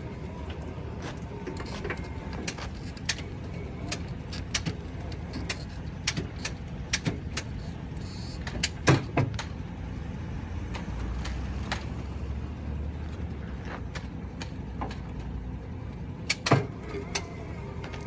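An older Chevrolet Z71 pickup idling, with scattered knocks and clunks as a crated engine is lowered into its bed. Two louder knocks come about nine seconds in and near the end.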